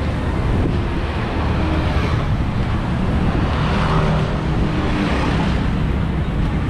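Steady road rumble and wind noise from riding in a moving electric bike.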